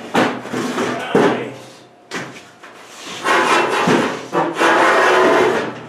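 Rusty sheet-metal body panel scraping and knocking as it is handled: a few sharp knocks in the first two seconds, then a long rough scrape from about three seconds in until just before the end.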